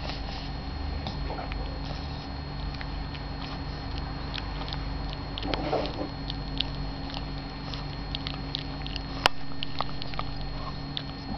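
A white Pekingese chewing and tugging at clothes: small scattered clicks and rustles of teeth on cloth, with one sharper click about nine seconds in, over a steady low hum.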